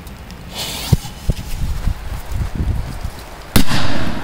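A powerful firecracker explodes under a metal milk can with one loud bang about three and a half seconds in, after a few sharp knocks. The blast is strong enough to flatten the can.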